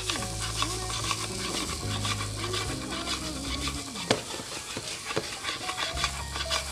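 Diced potatoes and carrots sizzling in oil in a frying pan while the pan is shaken and tossed, with many small clicks and a sharp knock about four seconds in.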